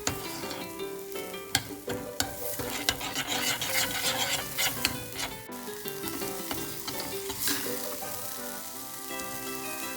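Food sizzling in hot oil in a ttukbaegi earthenware pot while being stirred, with a few sharp clicks of the utensil against the pot.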